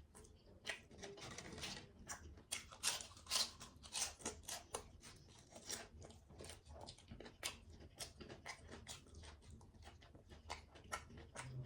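Close-up eating sounds: chewing with many short, sharp, irregular wet clicks and smacks, most frequent in the first half.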